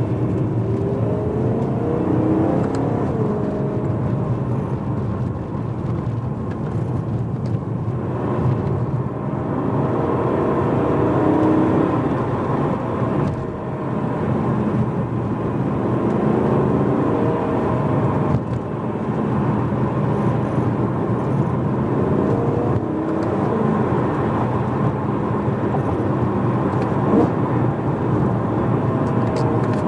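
BMW E92 M3's V8 running through a primary-decat X-pipe and stock rear silencer, heard from inside the cabin while driving. The engine note rises and falls with the revs, dipping briefly a few times.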